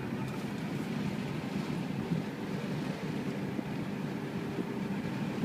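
Steady low rumble of a car's engine and tyres, heard from inside the cabin as it moves slowly along the road.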